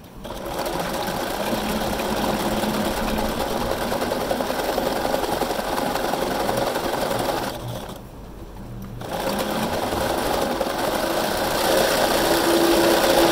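Bernina sewing machine stitching through a coiled clothesline rope bowl. It runs steadily, stops for about a second and a half partway through, then starts again and runs a little louder near the end.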